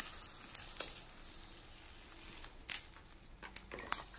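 Dry red lentils pouring from a plastic bag into a plastic measuring cup: a faint, steady patter of grains. Near the end come a few short crinkles of the plastic bag.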